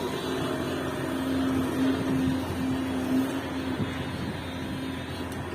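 Hidromek HMK 370 LC excavator running as it works, its engine and hydraulics giving a steady mechanical noise with a humming tone that grows louder for a couple of seconds in the middle and then eases back.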